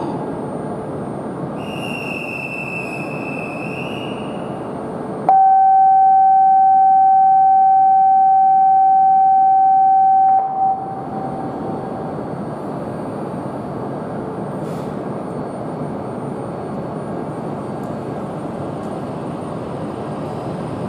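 Shinkansen train running on the Tohoku Shinkansen with a steady rushing noise. About five seconds in, the train sounds its horn: one loud, steady note that holds for about five seconds and cuts off suddenly. A fainter high whistle comes shortly before the horn.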